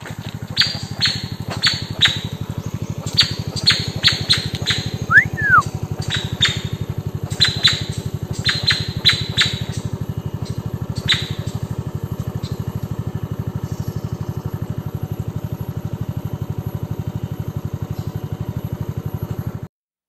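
A motorcycle engine idling steadily with an even low pulse. Over it, a bird gives a quick run of sharp chip notes for about the first ten seconds, plus one more at around eleven seconds, and a single short whistle that rises and falls about five seconds in. All of it cuts off suddenly just before the end.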